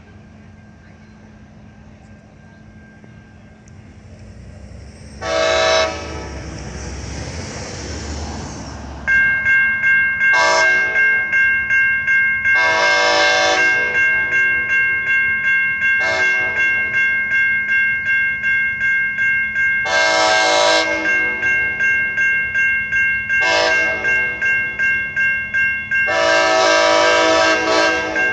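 Amtrak SC-44 Charger locomotive horn sounding a series of chords: one blast about five seconds in, then blasts that alternate short and long, while the train's rumble grows as it approaches. From about a third of the way in, a bell rings steadily about twice a second under the horn.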